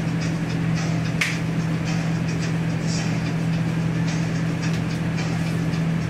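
Steady, loud hum of commercial kitchen machinery, with light clatter and one sharp click about a second in.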